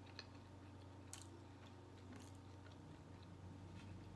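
A person chewing a mouthful of steak taco, faint, with a few short crunchy clicks over a low steady hum.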